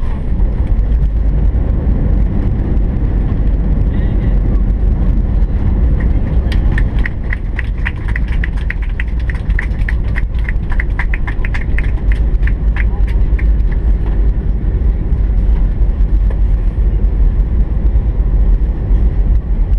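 Cabin noise of an Airbus A319 rolling on the runway after landing: a steady low rumble from the engines and wheels. For several seconds in the middle, a quick run of regular clicks, about four a second, sounds over the rumble.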